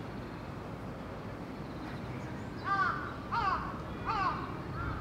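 A crow cawing three times, about two-thirds of a second apart, then once more, fainter, near the end, over steady background noise.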